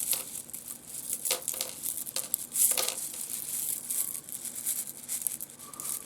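A handful of small pieces of rough seam opal being tumbled by hand, rattling and clicking against one another in a dense run of small clicks with a few louder strikes.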